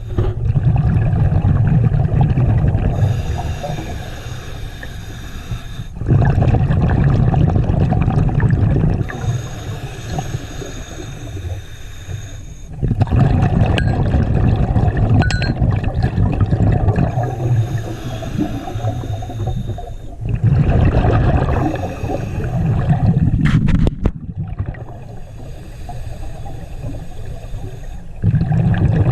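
Scuba diver breathing through a regulator underwater, in slow even cycles of about seven seconds. Each cycle is a quieter inhale through the regulator with a thin whistle, then a loud low rumble of exhaled bubbles, about four breaths in all.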